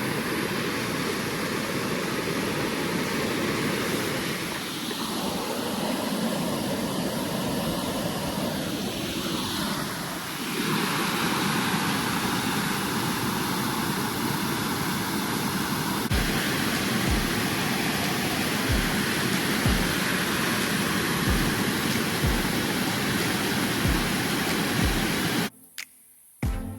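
Steady rush of a waterfall and creek water pouring over rocks. From about two-thirds in there is a regular low thump about once a second, and the water sound cuts off abruptly near the end.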